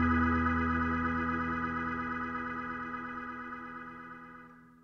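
Background music: a single sustained chord fading out steadily to silence by the end.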